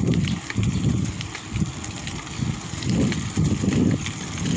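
Wind buffeting the microphone of a moving bicycle in uneven low gusts, over light rolling noise with a few faint clicks.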